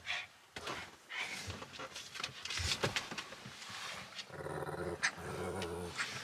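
A pet dog growling, a low rumble over the last couple of seconds, with scuffling sounds before it.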